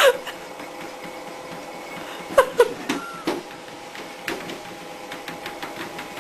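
Electric treadmill running with a steady motor whine under the moving belt as cats walk on it. A short cat cry right at the start, then a few brief knocks and squeaks from the cats on the belt about two and a half to three and a half seconds in.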